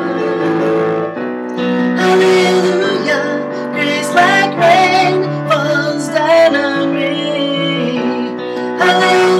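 A woman singing with vibrato over piano accompaniment. For the first second or so the piano plays held chords alone, then the voice comes in.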